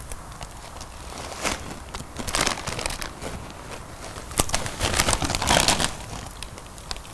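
Plastic tortilla-chip bag crinkling as it is handled and passed, in a few short bursts and then a longer run about two-thirds of the way through, with chips crunched between them.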